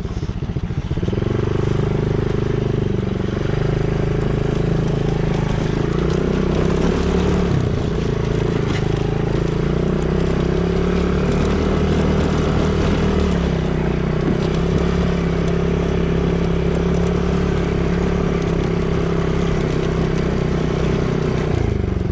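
Small 110cc single-cylinder ATV engine running steadily under throttle, its pitch dipping briefly and recovering a few times.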